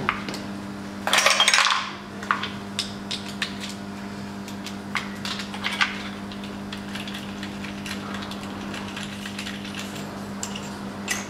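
Hand tools on a diesel cylinder head: a compression-gauge hose and adapter being unscrewed and a small ratchet worked, giving scattered metallic clicks and taps, with a short burst of noise about a second in.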